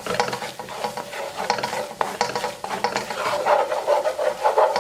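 A spatula stirring and scraping a butter-and-flour roux in a hot pan as it roasts, in uneven strokes with a few sharp clicks, over a light sizzle.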